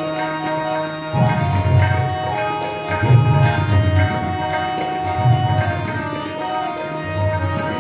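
Instrumental interlude of devotional kirtan: tabla plays a steady rhythm with deep resonant bass strokes under a sustained melody on harmonium.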